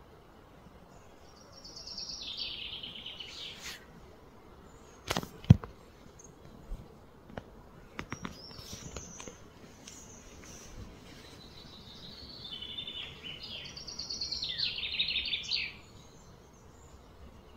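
Birds calling in rapid, descending trills, once briefly early on and again for longer near the end, over a steady outdoor hiss. A pair of sharp knocks a little after five seconds in are the loudest sounds, with a few lighter clicks around eight seconds.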